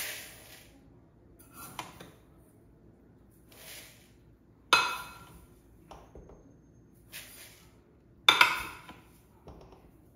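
Dry rice scooped from a glass jar with a metal measuring cup and poured into a ceramic bowl, cup after cup: each pour a sharp rattling hiss of grains against the bowl, the loudest about five and eight seconds in, with softer scraping of the cup in the rice between.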